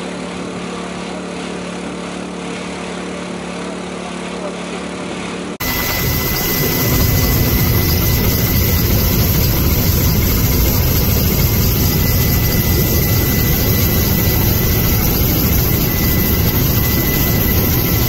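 A vehicle engine idling steadily; then, after an abrupt change about five seconds in, the loud steady engine and rotor noise of a helicopter heard from inside its cabin, with a thin steady whine over it.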